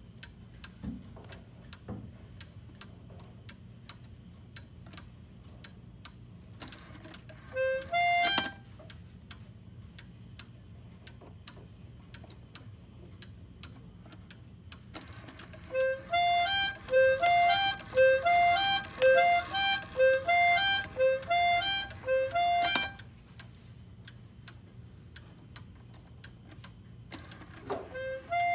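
Antique Black Forest three-horn trumpeter cuckoo clock sounding its reedy horn call: one rising two-note call about eight seconds in, then a run of about ten rising two-note calls lasting some seven seconds, and another call near the end, over the steady ticking of the movement. The long run follows the minute hand being turned by hand, which sets off the call.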